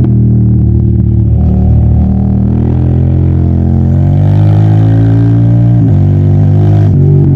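Yamaha TDM900's parallel-twin engine pulling under load, its pitch climbing steadily, then dropping sharply for a quick upshift about six seconds in.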